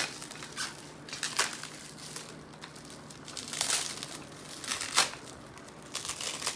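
Packaging crinkling and rustling in short, scattered bursts as products are handled and unwrapped.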